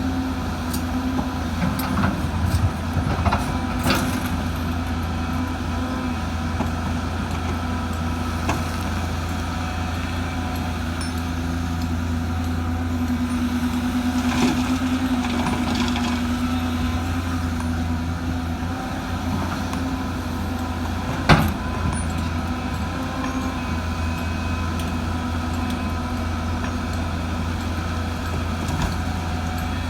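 Diesel engine of heavy earthmoving machinery running steadily, with a few short knocks and clanks. A sharp knock about two-thirds of the way through is the loudest sound.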